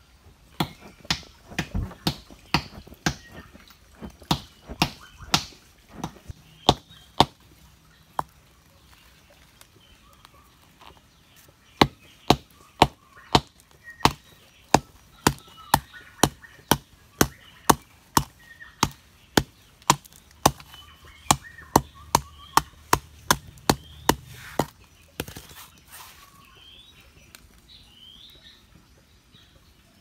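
Sharp knocks in a steady rhythm, about two a second, with a pause of a few seconds partway through, ending in a short clatter; birds chirp faintly near the end.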